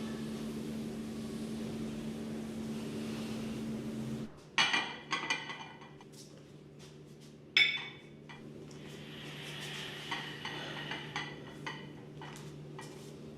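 A steady low hum that cuts off about four seconds in, then dishes and glassware clinking: a few sharp, ringing clinks followed by lighter taps.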